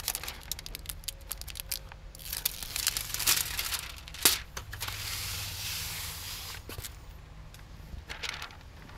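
Clear release liner being peeled off a pre-cut piece of automotive window tint film, crackling and crinkling with static. There is a sharp click about four seconds in, then a steady hiss for a second or two.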